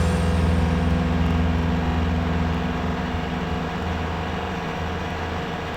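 A heavy vehicle's engine running with a steady low hum that slowly fades.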